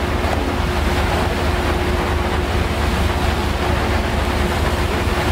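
Icebreaker under way: a steady low rumble of its engines with a constant hum, over the rush of wind and water past the bow.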